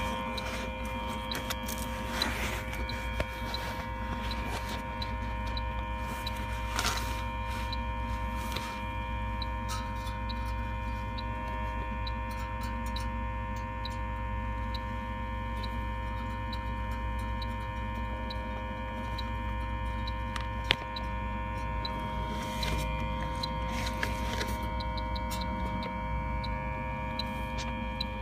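Inficon H-10 Pro electronic refrigerant leak detector ticking regularly at its idle rate as its probe is swept along an air-conditioning coil, over a steady electrical hum. No leak alarm sounds.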